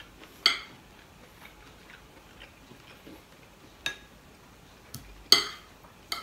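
Metal spoon and fork clinking against a ceramic dinner plate while eating: about five sharp clinks with short ringing, the loudest about half a second in and again a little after five seconds.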